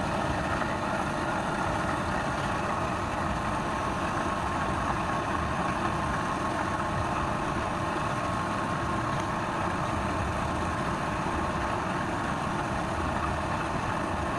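Wood lathe's electric motor running at a steady speed, with a constant hum and a steady whine.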